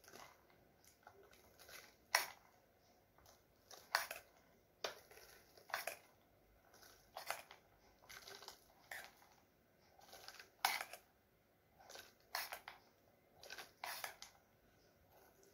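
Chopped walnuts being put into the hollows of cored apples in a paper-lined tin: a string of short clicks and light crunches, about one or two a second, with quiet between.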